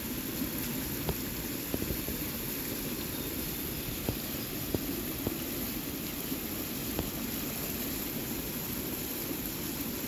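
Steady rush of a swollen creek flowing fast over rocks, with a few faint clicks and knocks scattered through.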